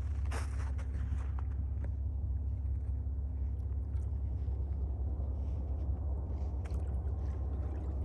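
A footstep crunching in snow about half a second in, then a steady low rumble with no distinct events, typical of wind on the microphone at an open lakeshore.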